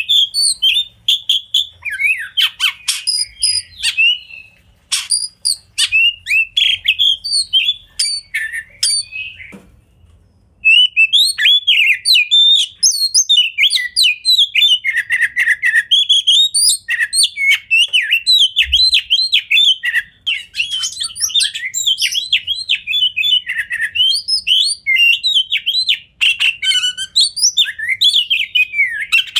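An oriental magpie-robin sings a long, fast, varied song of whistled notes and sharp clicks, breaking off briefly about ten seconds in.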